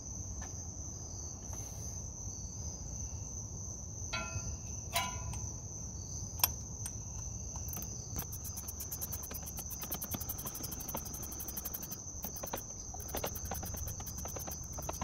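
Insects trilling steadily in the background, joined about eight seconds in by a fast, pulsing high chirp. A few light metallic clicks from hand work on the engine come through in the middle, the sharpest about six and a half seconds in.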